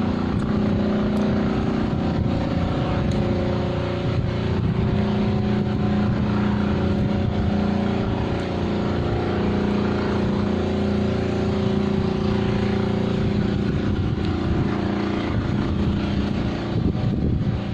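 A steady mechanical drone with a low hum, running at an even level throughout.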